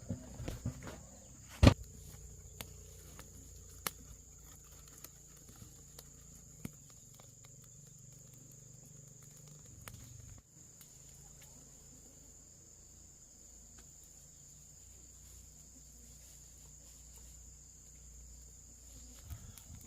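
Steady high-pitched insect drone with a few scattered sharp clicks and knocks, the loudest about a second and a half in.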